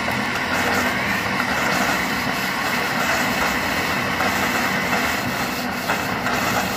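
Water and gas hissing and spraying steadily out of an opened gas pipe fitting, with a steady low hum underneath. Gas pressure is forcing out water that had collected in the line and cut off the gas supply.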